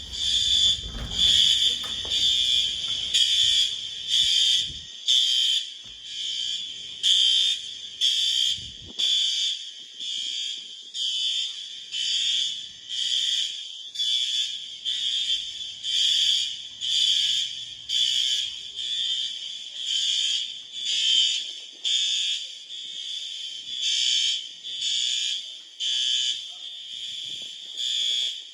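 Fire alarm sounding: a loud, high-pitched electronic beep repeating about once a second without pause.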